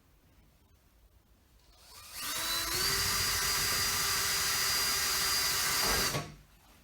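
Power drill with a 3mm bit drilling a fixing hole. The motor spins up with a rising whine about two seconds in, runs at a steady speed for about three seconds, then stops and winds down.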